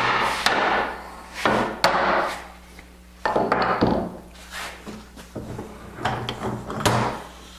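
A wooden rail being knocked down onto snug dowels in the edge of a tabletop panel during a dry fit: several sharp wooden knocks, each followed by a short scraping rush as the wood slides on.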